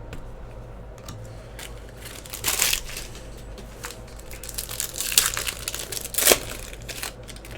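Crinkling and tearing of a plastic trading-card pack wrapper as it is handled and opened, in several short bursts over a low steady hum.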